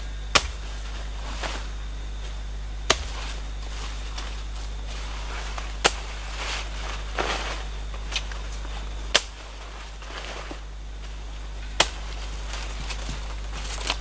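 Machete chopping through leafy plant stems: five sharp chops roughly three seconds apart, with leaves rustling between them.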